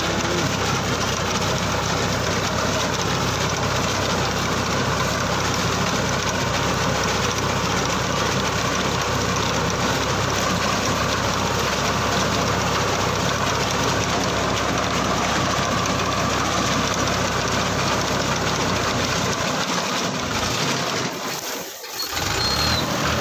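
Diesel engine of a 480 tractor running steadily under load as it drives a shaft-driven reaper cutting wheat. About 20 s in the low rumble falls away, and the sound dips briefly near the end.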